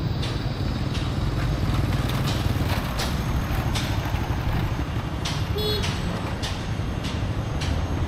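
Steady rumble of a road vehicle running, with a brief short tone about five and a half seconds in.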